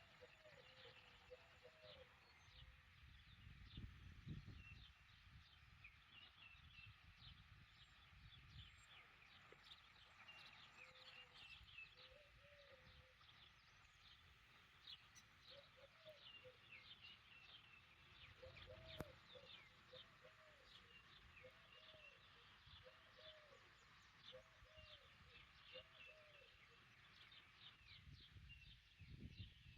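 Faint outdoor birdsong: many quick, high chirps from small birds, with a pigeon cooing over and over in short runs of low, arched coos, mostly in the second half. Now and then a low rumble of wind on the microphone; the siren is not sounding.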